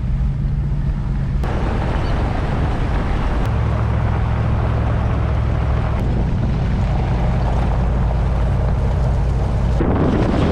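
Pickup truck driving on a back road: a steady engine note with road and wind noise, the engine note shifting about a third of the way in.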